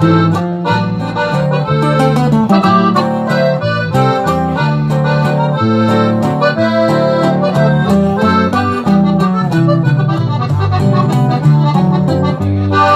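Accordion playing an instrumental break between sung verses: quick runs of melody over a steady bass and chord accompaniment.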